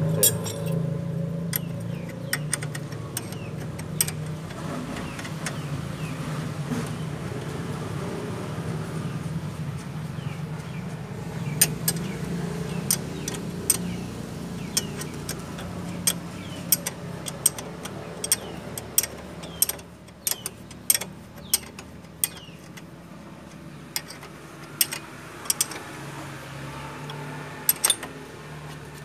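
Sharp metallic clicks and clinks, irregularly spaced, of a wrench working the bolts of a Hyundai Atoz's front brake caliper. They sound over a steady low hum.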